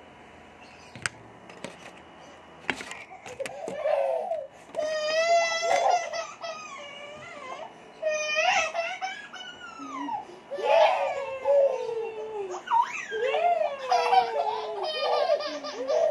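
Infants squealing and laughing in high, excited bursts that start a few seconds in, after a few light knocks.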